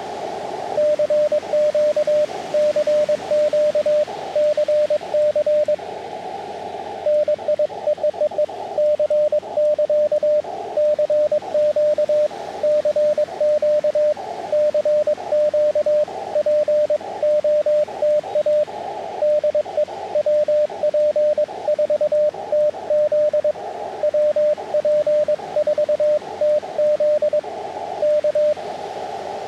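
Morse code from an Elecraft KX2 amateur radio transceiver: one steady mid-pitched beep keyed on and off in dots and dashes. Receiver hiss, narrowed by the CW filter, fills the gaps, with a brief pause in the code about six seconds in.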